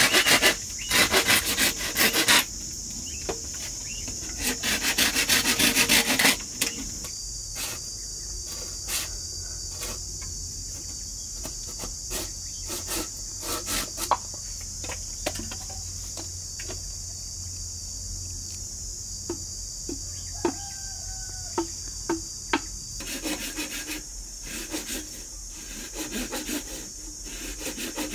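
A hand tool rubbing against bamboo in spells of strokes during the first few seconds and again near the end, with scattered light taps and clicks in the long pause between. Insects call steadily in the background.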